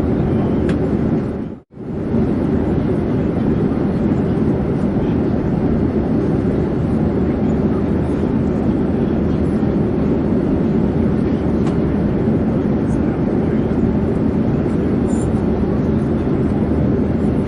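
Airplane in flight: a steady, even rush of engine and airflow noise, deep-toned. It drops out abruptly for a split second about a second and a half in, then resumes unchanged.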